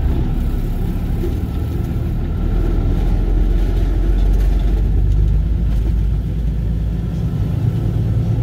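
Tractor-trailer's diesel engine running under way on a gravel road, heard from inside the cab: a steady low rumble with road noise, swelling a little about two and a half seconds in.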